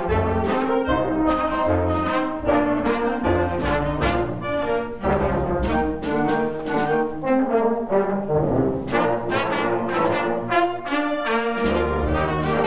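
Concert band playing a ragtime-style piece: brass and saxophones carrying the tune over a steady beat.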